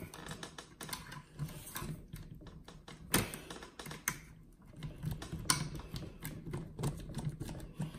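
Needle-nose pliers and small metal and plastic parts of an RC truck's front end clicking and rattling as they are worked, in irregular light clicks, with sharper clicks about three seconds in and about five and a half seconds in.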